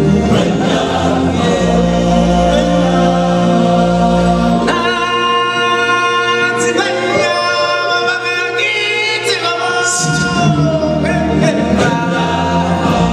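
A group of singers singing a slow choral chant in harmony, with long held notes over a low bass. The bass drops out for a few seconds in the middle, then comes back.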